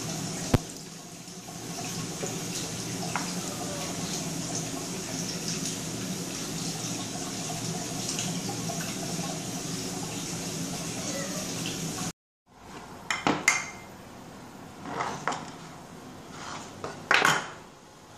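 A steady rushing noise with a low hum. After a brief cut to silence, several sharp knocks and clinks of dishware on a wooden cutting board follow.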